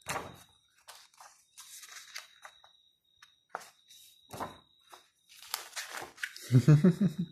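Pages of a large hardcover photobook being turned by hand: a run of paper rustles and swishes as the pages flip over. Near the end comes a short, louder burst of a person's voice.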